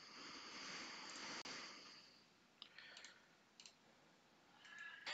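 Near silence: faint room tone with a soft hiss in the first two seconds, then a few faint clicks.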